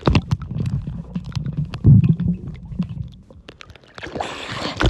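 Muffled underwater sound picked up by a phone in a waterproof case submerged in a swimming pool: a low rumble of water and movement with scattered knocks and clicks. A hiss of churning water rises near the end as the phone nears the surface.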